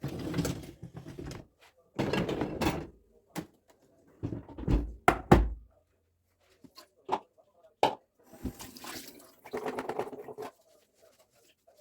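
Household objects being handled and set down: a string of knocks and clatters in short bursts separated by pauses, with two heavy thuds about five seconds in.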